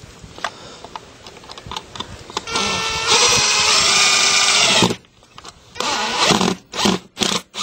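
Power drill driving a screw into a pop-in electrical box. The motor runs for about two seconds with its pitch wavering, then gives several short bursts near the end.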